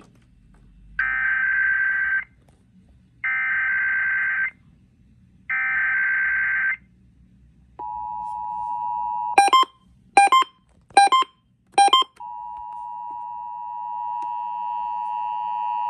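Emergency Alert System required weekly test from IPAWS. Three roughly one-second bursts of warbling SAME header data tones come first, then the steady two-tone 853/960 Hz attention signal. Four short sharp beeps cut into it partway through, and then the steady tone resumes.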